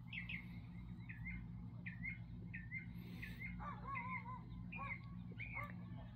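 A bird chirping over and over, about two short chirps a second, with a second, warbling bird call briefly around the middle. Under it runs the steady low hum of a Trane air-conditioning unit.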